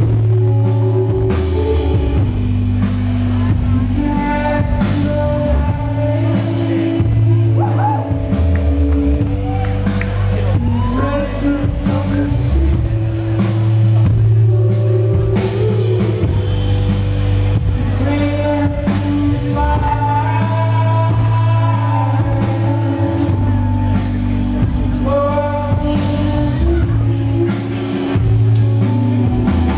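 Live rock band playing a song loud, electric guitar over a heavy low end, with sung lines coming and going.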